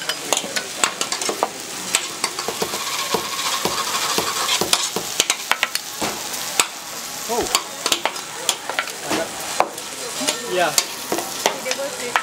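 Lobster tails and butter frying on a hot steel teppanyaki griddle: a steady sizzle with many sharp clicks and taps.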